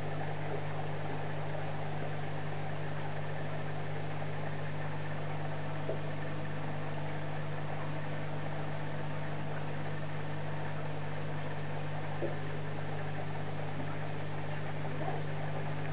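Steady low mechanical hum and whir of aquarium equipment, unchanging throughout, with two faint brief ticks about six and twelve seconds in.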